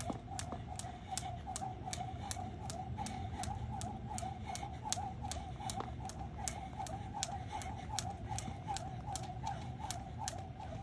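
Skipping rope on pavement: the rope and feet hit the ground in an even rhythm, about three sharp clicks a second, over a steady warbling drone.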